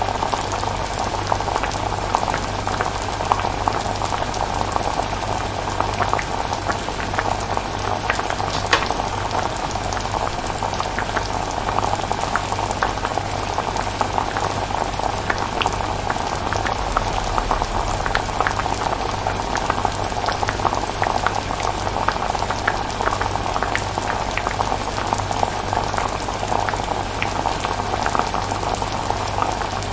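Pot of chilli simmering: thick sauce bubbling and popping in a steady, dense crackle, over a low steady hum.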